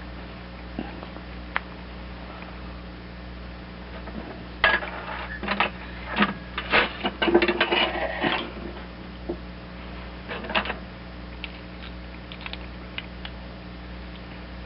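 Small metal carburetor parts and hand tools clicking and clattering as they are handled, in a busy run of taps through the middle and a few more near the end, over a steady low hum.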